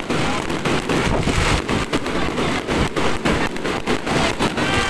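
Aerial fireworks bursting overhead: a dense, continuous crackle of many small sharp pops from glittering crackling stars, over a low rumble of bangs.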